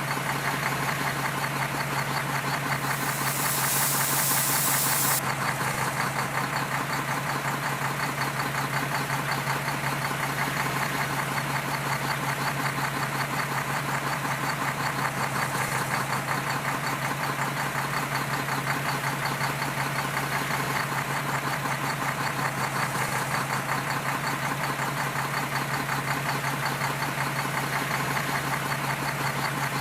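Diesel engine of heavy earthmoving machinery running steadily with a knocking clatter, with a loud hiss lasting about two seconds a few seconds in.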